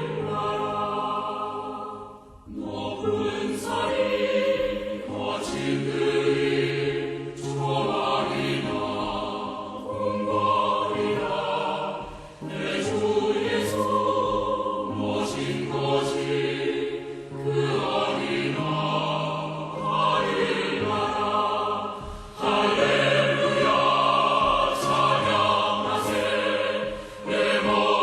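Choral music: a choir singing long held phrases, with short breaks between them.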